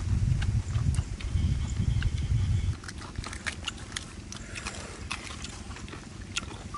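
Small clicks and scrapes of a metal spoon scooping food out of a leaf wrapping while people eat. A low rumble under the first few seconds stops abruptly.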